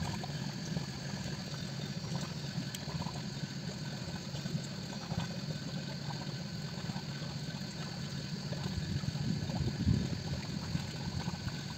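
Honda four-stroke outboard motor idling steadily, with water lapping around the hull; a brief louder swell about ten seconds in.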